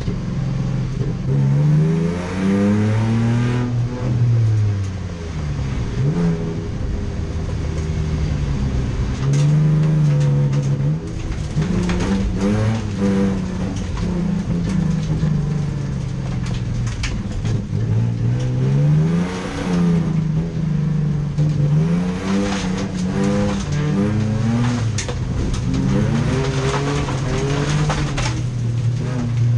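Racing car engines revving hard, the pitch climbing and dropping again and again through gear changes and lifts off the throttle.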